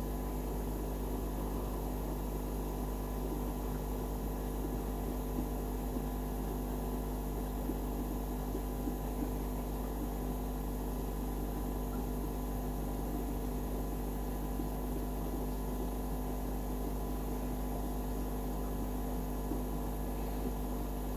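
Steady electrical hum made of several low tones, with a faint hiss over it and a few faint ticks.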